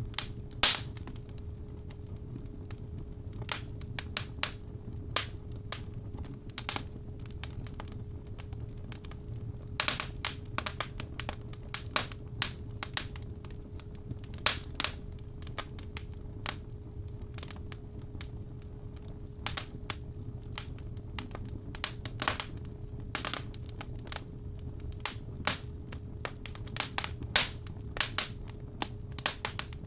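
Fireplace fire crackling with irregular sharp pops over a low rumble, mixed with a steady 417 Hz tone.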